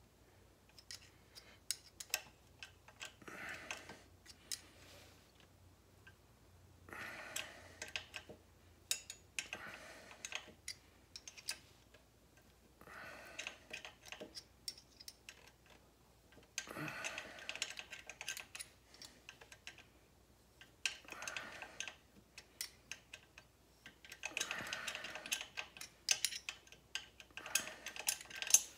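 Scattered light clicks and short stretches of scraping, in clusters a few seconds apart, as a thread tap is turned by hand with a small 8 mm wrench in the exhaust stud hole of a Suzuki GS1100 cylinder head.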